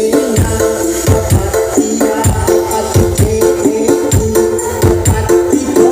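Dance music blasting from a large carnival parade sound system, with a heavy, steady bass-drum beat, held melody notes and tambourine- or shaker-like percussion on top.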